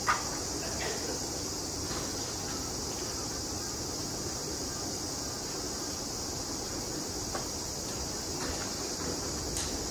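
Steady high-pitched chirring of an insect chorus, like crickets, over low background rumble, with one sharp click right at the start.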